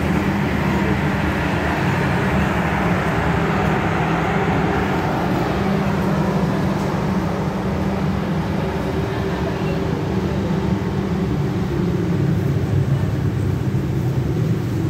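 Passenger train coaches rolling slowly through a station: a steady rumble of wheels on rail under a low hum. The rumble thins out about halfway through as the coaches move away.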